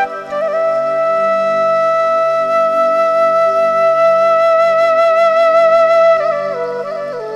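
Background music: a flute melody holds one long note, then steps down through a few lower notes near the end, over a soft low drone.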